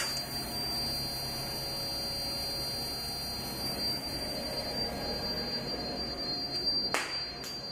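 Steady high-pitched whine from the CNC control's servo power supply over a low electrical hum; the owner suspects a bad capacitor. A single sharp click near the end.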